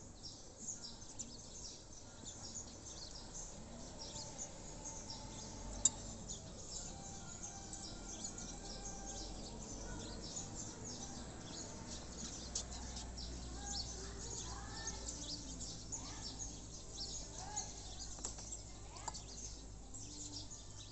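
Birds chirping steadily in the background, with a few rising and falling calls in the second half and a single sharp click about six seconds in.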